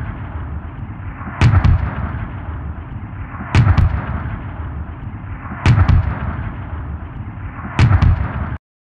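Cinematic title-sequence sound effects: a steady low rumble with a sharp double-struck boom about every two seconds, four times, all cutting off suddenly near the end.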